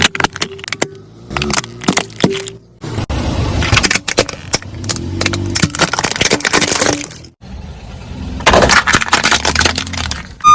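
Repeated sharp cracking and snapping as a car tyre rolls over and crushes brittle objects, with the car's engine running low underneath. The sound drops out briefly twice, once about a third of the way in and again about two-thirds through, like cuts between separate crushes.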